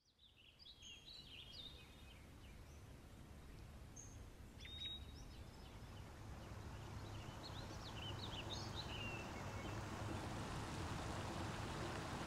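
Outdoor ambience fading in from silence: a steady low background rumble with scattered small birds chirping, growing gradually louder.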